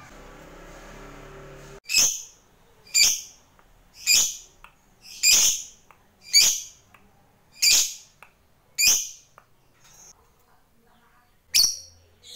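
Fischer's lovebird giving a series of short, shrill calls, about one a second, seven in a row, then a pause and one more near the end. The first two seconds hold only a faint hiss.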